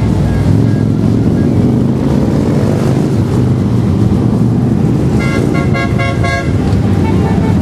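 A procession of cruiser and touring motorcycles riding past, their engines a steady, low, dense rumble. About five seconds in, a horn gives a quick series of short toots, and a held horn tone follows near the end.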